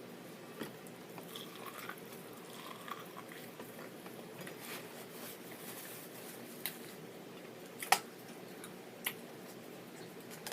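Quiet biting and chewing of Mexican street corn (elote) on the cob, with scattered small mouth clicks and two sharper clicks about eight and nine seconds in.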